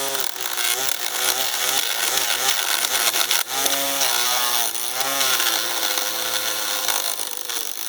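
Chainsaw running and cutting wood, its pitch dipping and recovering as it bogs under load.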